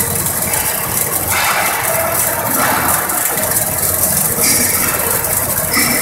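Yaskawa welding robot arc welding, a loud, steady, dense noise whose character shifts a few times as the weld goes on.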